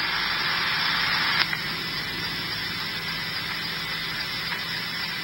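Hiss of radio static from a streamed police scanner feed playing through a phone's speaker between transmissions. It drops a little with a faint click about a second and a half in.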